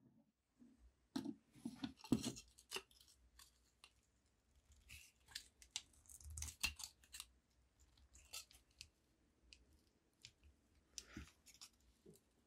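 Quiet clicks and short scrapes of steel screwdriver tips working against the rusty steel of a vintage Bon Clou can opener as it is taken apart, coming in several small clusters.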